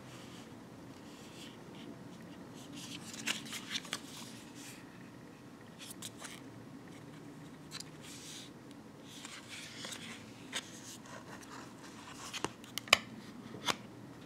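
Hands handling a card booklet-style coin folder: soft rustling and scraping of card, with a few short sharp clicks or taps, the loudest cluster near the end as the folder is opened.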